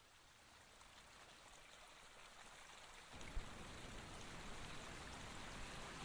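A faint, even rushing hiss like running water or rain, slowly swelling louder, with a single low knock about three and a half seconds in.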